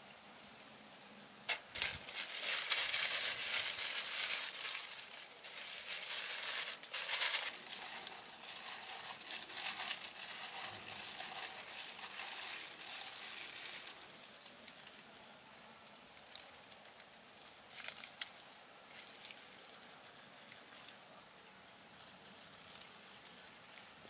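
Thin disposable plastic gloves crinkling and rustling as they are pulled on and worked by the hands, loudest in the first half. Quieter handling follows, with a few light clicks.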